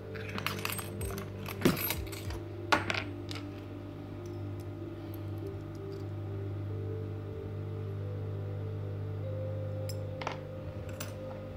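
Small steel sewing-machine parts and screws clinking as they are set down and handled on the machine table: a run of sharp metallic clinks over the first three seconds, and one more near the end. Under them runs a steady low hum with held tones.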